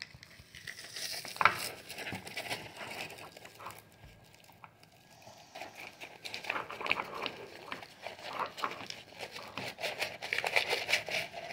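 Plastic packaging crinkling and rustling, with irregular small clicks and taps, as the parts of a plastic toy kit are handled.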